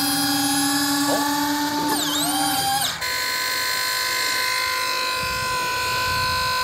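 Small electric fuel pump whining steadily as it fills an RC jet's tank from a fuel jug. The tone wavers during the first few seconds, then settles into a steadier, higher whine about three seconds in.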